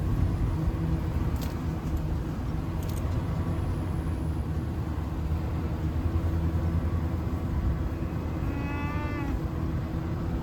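A vehicle engine idling steadily. About eight and a half seconds in, a cow gives one short moo lasting about a second.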